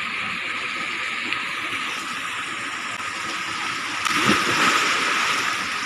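A person jumps feet-first into the water with a splash about four seconds in, over a steady rush of water.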